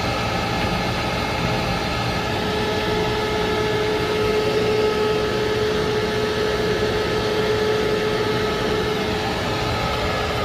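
An electric motor running steadily with a constant whine over a broad mechanical hum.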